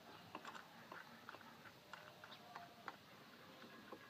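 Near silence with faint, scattered small clicks of steel nuts being turned by hand onto the bolts of an electric water heater's element flange.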